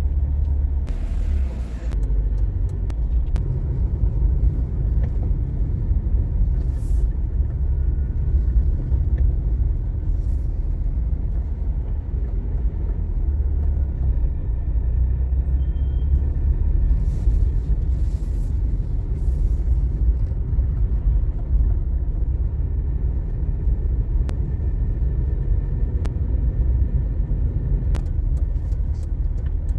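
Outdoor street ambience: a steady low rumble, with a few faint brief hisses and a click.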